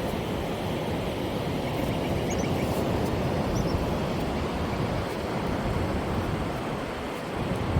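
Ocean surf washing steadily against a rocky shore, with wind buffeting the microphone. A few faint, short high chirps come twice near the middle.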